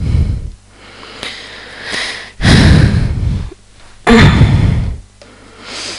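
Breath and rustling close to a headset microphone as the wearer moves about: three noisy bursts about a second long, with quieter gaps between.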